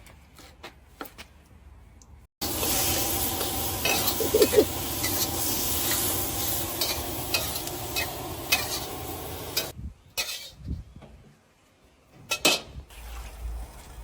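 Food frying in a hot pan, sizzling loudly while a metal utensil stirs it with scraping clinks. The sizzle starts suddenly about two seconds in and stops abruptly near the tenth second, leaving a few light clinks.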